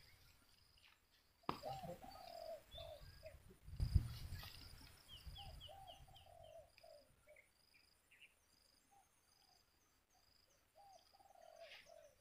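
Birds calling: runs of short whistled notes repeated in quick groups, with higher chirps over them and a quick series of falling chirps about five seconds in. A low thud about four seconds in is the loudest sound.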